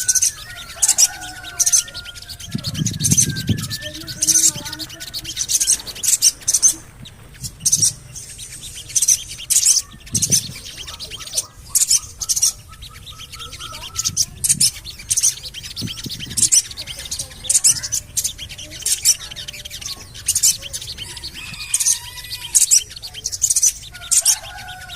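Sogon bird calling with short, sharp high chirps, "cuit-cuit-cuit", repeated irregularly about once or twice a second. Fainter lower whistles sound alongside, with a few dull low thuds.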